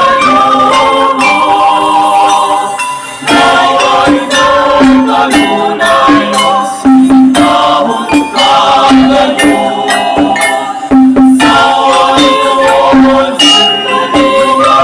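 Music with several held pitched notes sounding together over rattling, shaker-like percussion, briefly dropping away about three seconds in and again near eleven seconds.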